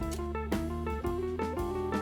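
Instrumental background music: a plucked guitar melody over a steady beat about twice a second.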